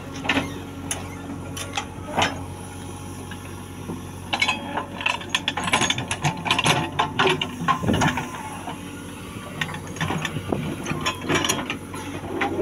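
JCB 3DX backhoe loader's diesel engine running steadily while the backhoe bucket digs, with bursts of rattling clanks and knocks from the bucket and the soil and stones it moves, densest about halfway through and again near the end.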